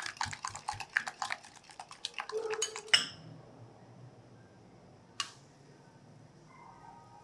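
Wire whisk beating eggs and sugar in a glass bowl: rapid clinks of the wires against the glass, ending with a sharp knock about three seconds in. After that it is quiet apart from a single click later on.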